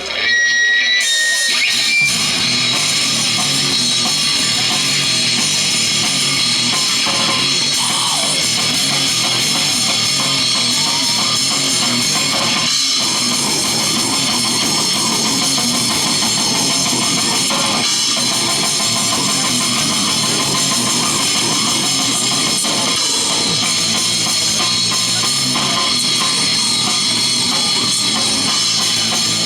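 A rock band playing loud, heavy music with electric guitar. It comes in abruptly about half a second in and stays dense and steady.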